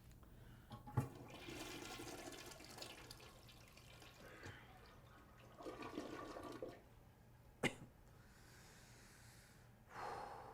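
A toilet flushing: a sharp click about a second in, then rushing water, with another click and more water sounds later.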